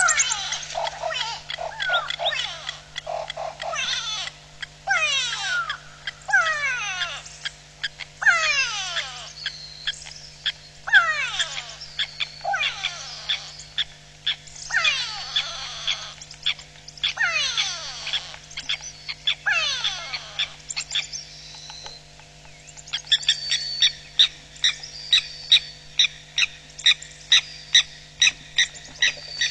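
Grey go-away birds calling in alarm: bursts of nasal, falling calls every second or two, then near the end a quicker run of short, sharp calls about two a second. The calls are their distress at a visiting hawk eagle.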